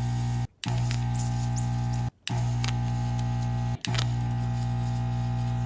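Desoldering gun's vacuum pump buzzing steadily while the pins of a circuit-board relay are being desoldered, with faint clicks. The buzz stops dead for a moment three times: about half a second in, just after two seconds and near four seconds.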